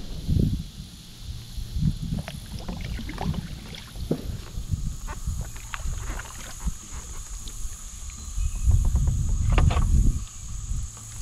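Kayak paddling through duckweed-covered water: repeated paddle strokes with splashing and drips, scattered clicks and knocks, and a low uneven rumble. The strokes are heaviest about nine seconds in.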